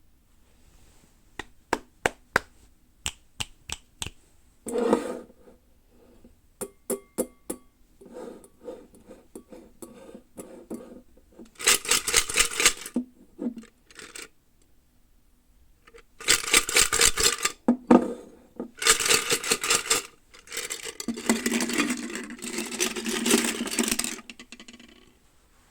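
Toy packaging being handled: a run of sharp plastic clicks and taps, then several stretches of crinkling packaging lasting a few seconds each.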